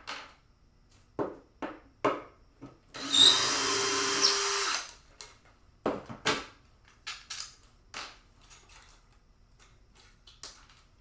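Power drill running in one burst of almost two seconds, about three seconds in, with short clicks and knocks of handled parts before and after.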